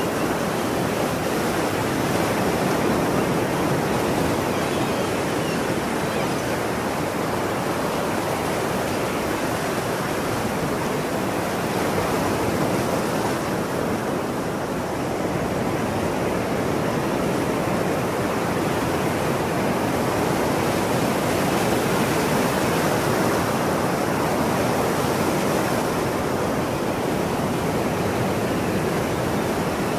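Ocean surf washing in a steady, continuous rush of breaking waves, easing slightly about halfway through.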